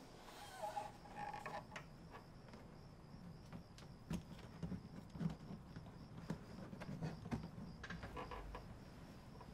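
Quiet room sounds: faint creaks and scattered soft knocks. From about a second and a half in, a steady, high-pitched pulsing chirr runs behind them.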